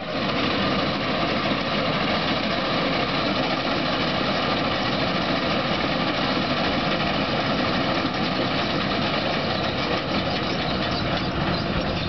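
Combine harvester running steadily with its engine and machinery working as it cuts through a standing crop, an even, unbroken drone.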